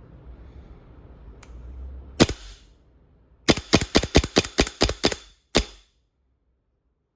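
Airsoft Desert Eagle pistol firing: a faint click, a single shot, then a quick string of about ten shots, several a second, and one last shot.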